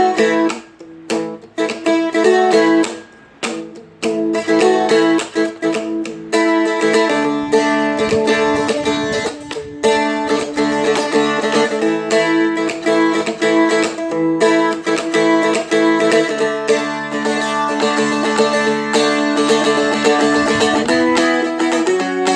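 Seagull Merlin (a small fretted strumstick-style instrument) being played. A few picked notes with pauses come first, then from about six seconds in it settles into steady rhythmic strumming.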